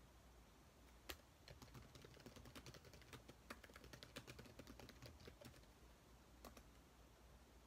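Faint laptop keyboard typing: one keystroke about a second in, then quick typing for about four seconds, and two last keystrokes near the end.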